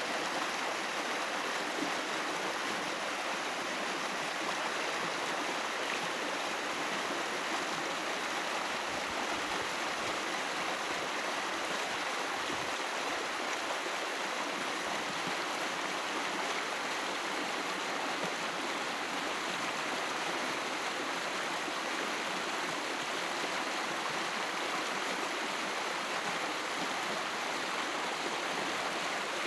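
Small stream running over stones, a steady rushing and babbling of water that stays even throughout.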